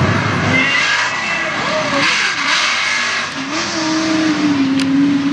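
Mega truck's engine revving hard under load as it climbs a dirt course, its pitch rising and falling, then climbing about three seconds in and held high near the end.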